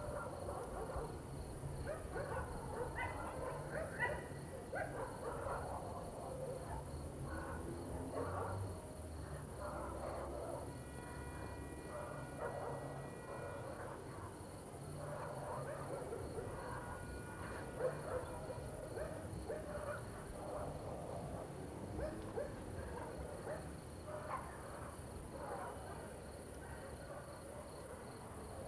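Night ambience: crickets chirping steadily, with scattered distant dog barks throughout.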